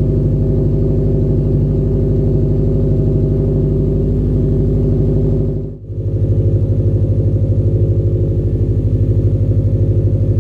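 Subaru WRX STi's turbocharged flat-four engine idling through its exhaust, a steady pulsing note. It cuts out briefly about six seconds in, then resumes with a deeper tone.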